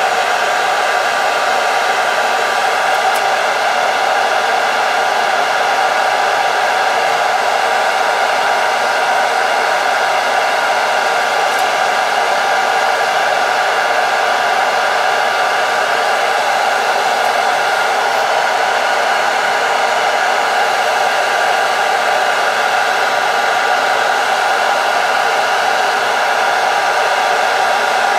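Hot-air blower running steadily: a continuous rush of air with a steady whine in it, heating heat-shrink tubing to shrink it tight over cable sleeving.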